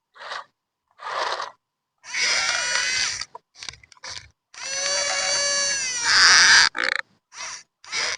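Small electric motors and gears of a radio-controlled model excavator whining and grinding in short stop-start bursts, several pitched and steady, with a longer run about two to three seconds in and another near the middle.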